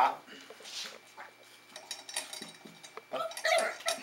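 West Highland white terrier puppy protesting at having her neck hair hand-stripped, with a short pitched yap about three seconds in, among small clinks and rustling of handling.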